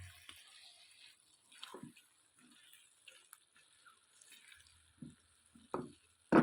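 A spoon scooping thick, wet potato curry out of the pot and serving it, with soft squelches and a few scattered small sounds, ending in a sharp knock.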